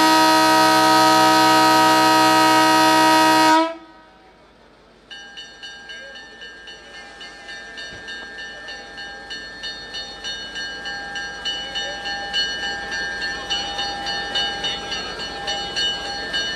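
Diesel locomotive horn sounding one long blast that cuts off sharply a few seconds in. After a short gap the locomotive moves off: a steady whine with a rhythmic clatter that grows louder as it comes closer.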